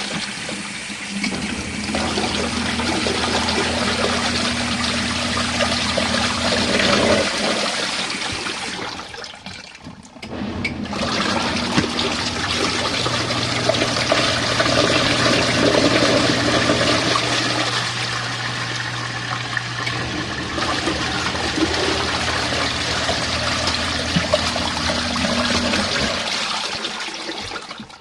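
Portable washing machine running its wash cycle, water churning in the tub over a steady motor hum. The sound drops out for a moment around ten seconds in, then runs on with a slightly different hum.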